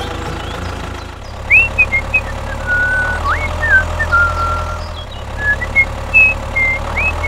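A steady engine-like drone with a low hum. Over it come a string of short, high chirps and quick rising glides.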